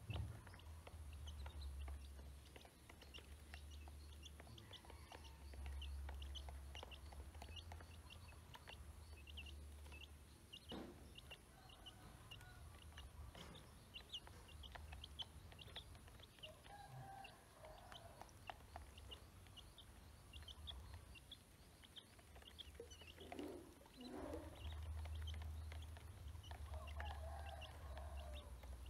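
A brood of ducklings peeping over and over in short, high peeps while they feed, with a few lower calls in the middle and near the end. A low rumble comes and goes underneath.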